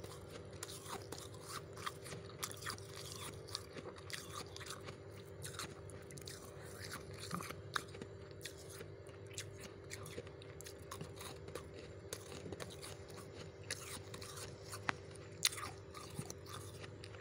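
Soft freezer frost being bitten and chewed: a run of small, irregular crunches over a steady low hum.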